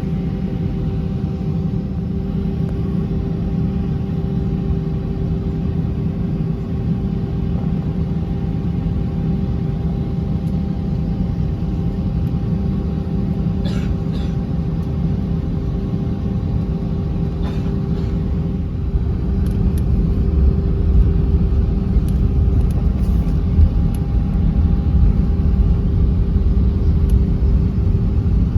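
Inside the cabin of a taxiing Airbus A319: steady jet engine hum and low rolling rumble, with two faint clicks partway through. The low rumble grows louder about two-thirds of the way in.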